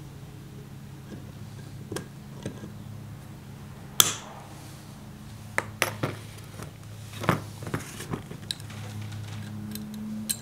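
Hand tools and cast-iron lathe parts handled on a workbench: sharp metal clinks and knocks as steel pliers and the part are picked up and set down, the loudest about four seconds in and a cluster of them between six and eight seconds, over a steady low hum.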